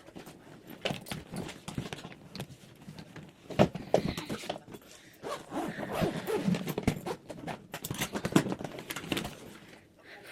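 Luggage being unpacked by hand: irregular rustling, clicks and knocks as a suitcase and its contents are handled, with one sharper knock about three and a half seconds in.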